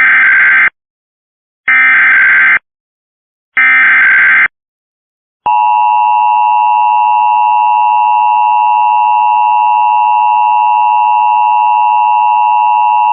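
Emergency Alert System tones opening an alert, here a demonstration test. First come three short bursts of SAME digital header data, each under a second long and about a second apart. Then the steady two-tone attention signal starts about five and a half seconds in.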